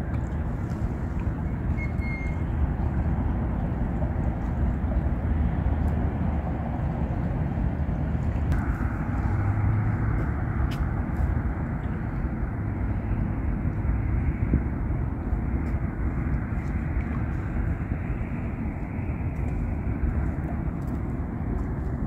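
Steady rush of flowing river water, an unbroken noise heavy in deep rumble, with a few faint ticks on top.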